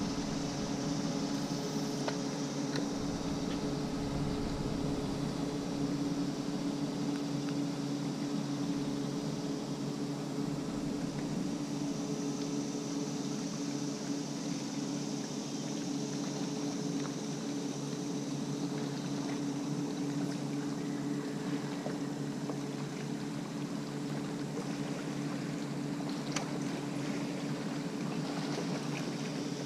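Steady hum of a small motor on a jon boat, running unchanged with a few faint ticks.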